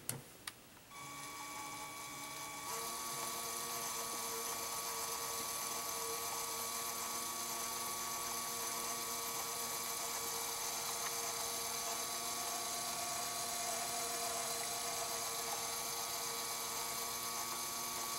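A click as a LEGO Technic electric motor is switched on. About a second in the motor starts, then runs with a steady whine that gets louder near three seconds in as it turns the linkage.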